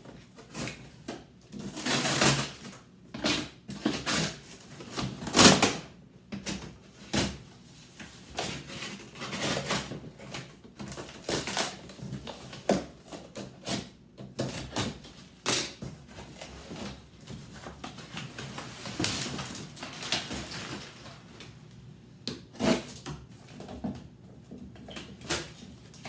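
Cardboard shipping box being cut open with a utility knife and its flaps handled: an irregular run of scrapes, rustles and knocks of cardboard.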